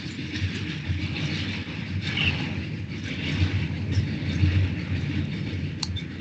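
Steady background noise, a low rumble with a hiss above it, with a single sharp click near the end.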